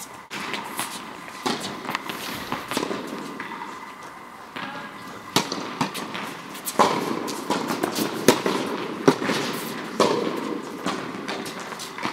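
Tennis balls being struck by rackets and bouncing on the court: a string of sharp pops at irregular intervals, sometimes several within a second.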